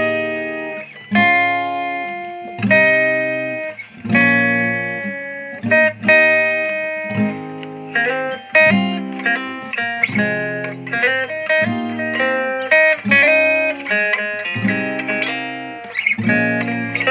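Guitar playing the vocal melody of a song over plucked chords, each chord struck and left to ring. The melody notes come more quickly in the second half.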